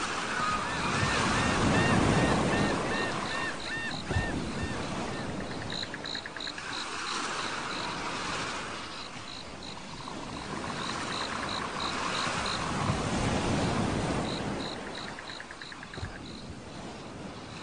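Surf washing in and receding in slow swells, a few times over, with rows of short, high, repeated chirping calls over it.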